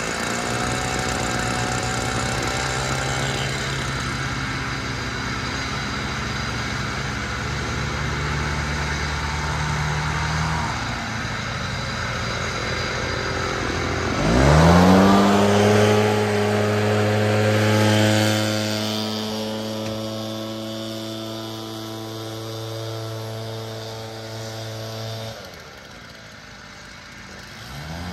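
Gas backpack leaf blowers running. About fourteen seconds in, one is throttled up sharply from a lower note to a steady high-pitched full-throttle whine, holds for about eleven seconds, then drops back, and one revs up again near the end.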